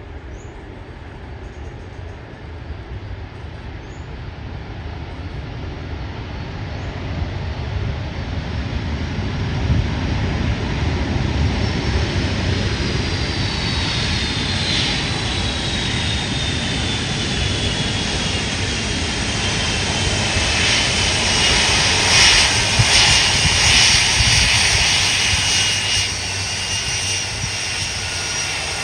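Boeing 747 freighter's jet engines, a steady roar that grows louder as the aircraft draws near and passes. A high engine whine slowly falls in pitch as it goes by.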